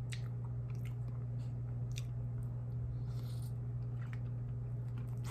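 Close-up biting and chewing of a taco, with small wet smacks and crackles every second or so. Under it runs a steady low hum.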